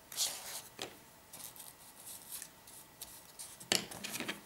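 Cardboard and paper being handled and pressed by hand: faint, scattered short rustles and light taps, busier near the end.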